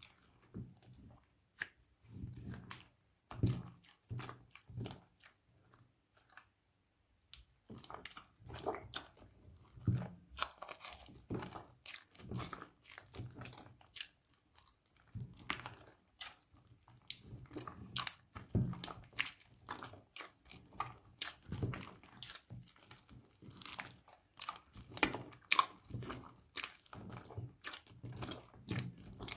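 Slime being squeezed and kneaded by hand: irregular sticky clicks, pops and squelches, with a short lull about six seconds in.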